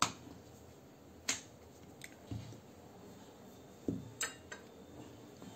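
Sparse light clicks and knocks of a wooden rolling pin on a marble rolling board as layered dough is rolled out, with a sharper click at the very start.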